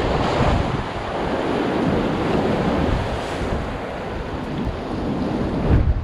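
Rough sea surf washing in against the rocks and concrete tetrapods of a breakwater, with wind buffeting the microphone. The wind rumble is heaviest just before the end.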